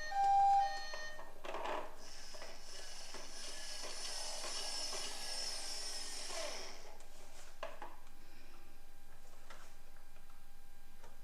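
An electronic two-tone hi-lo siren from a toy emergency vehicle sounds for its last note within the first second and stops. Faint hissing and rubbing handling noise follows for a few seconds, then a few light clicks.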